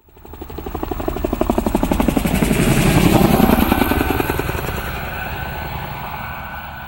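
A motor passing by with a rapid chopping pulse. It swells, is loudest about three seconds in, then fades away.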